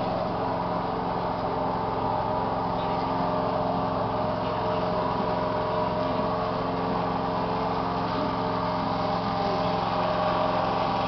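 Small engine running steadily at an even speed, with a constant hum.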